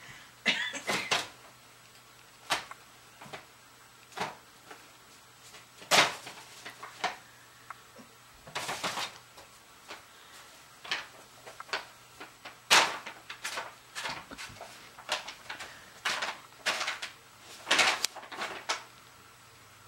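Brown paper bag crinkling and rustling in irregular bursts with pauses, as kittens paw at it and climb on and into it; the loudest crackles come about six, thirteen and eighteen seconds in.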